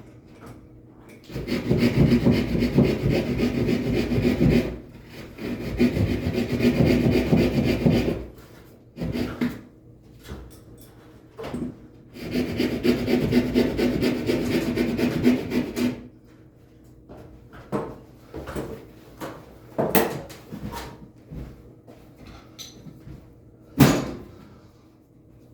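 A power tool running in three long spells of a few seconds each, with a rasping, sawing scrape over a steady motor tone, followed by scattered knocks and clicks.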